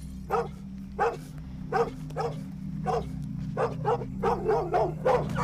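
A dog barking repeatedly: about a dozen short barks, coming quicker toward the end, over a steady low hum.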